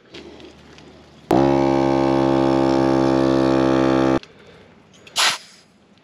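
Portable air compressor inflating a motorcycle tire: it spins up briefly, runs with a steady pitched drone for about three seconds, then cuts off abruptly. A short hiss of air follows about a second later.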